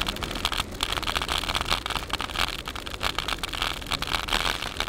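Bicycle riding over a rough paved road: continuous irregular rattling and clattering from the bike and the jostled recorder over a steady low rumble, with a steady high hiss above it.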